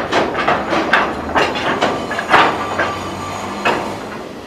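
Hoki 800 steel hopper wagons of a slow freight train rolling past, clanking and knocking irregularly several times a second over a low rumble.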